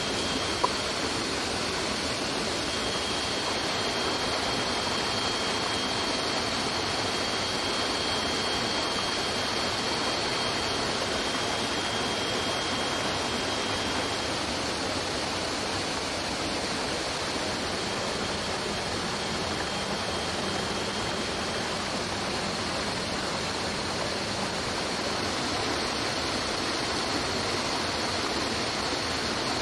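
Rushing stream water, a steady even noise, with a thin steady high whine running over it for much of the time.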